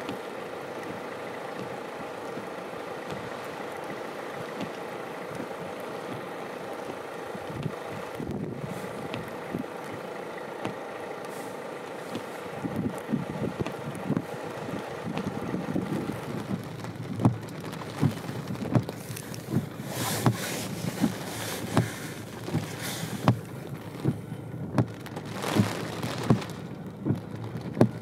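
Steady hum of an idling vehicle. From about halfway, sharp scattered taps of sleet and hail pellets striking come in and grow more frequent and louder toward the end.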